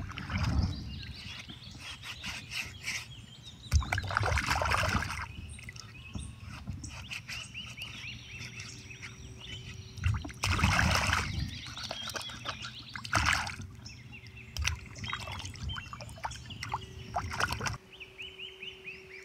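Shallow creek water sloshing and splashing in several separate swishes as a hand works a wooden hatchet handle under the surface, with birds chirping faintly between them.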